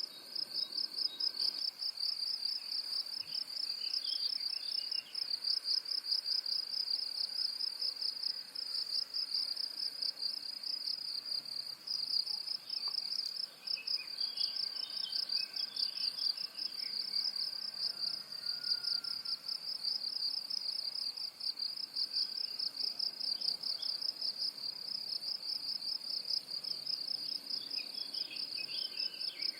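A steady, fast-pulsing insect trill, like a cricket's, runs without a break. Faint bird chirps come through a few times: about four seconds in, around the middle and near the end.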